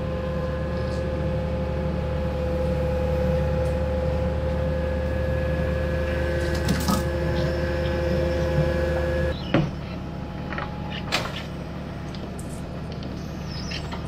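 Tracked excavator's diesel engine running under load with a steady whine over it, which drops off suddenly about nine seconds in. A few sharp metal knocks and scrapes come as a rusty steel beam is dragged on a chain across the ground.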